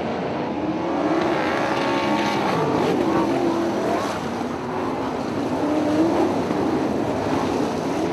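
A pack of dirt-track sprint cars racing, their engine notes rising and falling in pitch.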